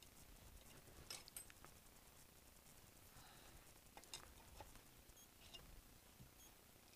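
Near silence, with a few faint metal clicks and taps, about a second in and again about four seconds in, as air rifle parts are fitted together by hand: the end of the receiver being seated and its pin pushed in.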